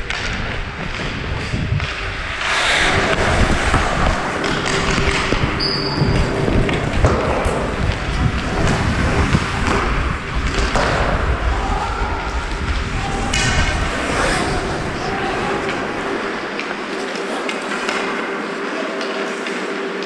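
Hockey skate blades cutting and scraping on rink ice, with wind rumbling over the body-worn action camera's microphone as the player skates, and scattered knocks. The wind rumble fades out about four seconds before the end as the skater slows and stops.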